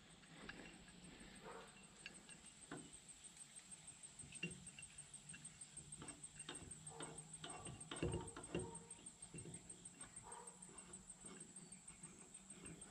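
Faint, scattered metallic clicks and taps as a C-frame U-joint press is fitted over a driveshaft yoke and its threaded screw is turned by hand to press in a U-joint bearing cap. There is a slightly louder knock cluster about eight seconds in.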